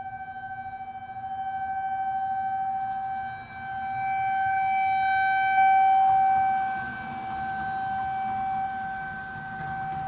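Federal Signal 2001-130 outdoor warning siren sounding a steady single tone with overtones, swelling and fading in loudness as it rotates. It is sounding an alert for a severe thunderstorm.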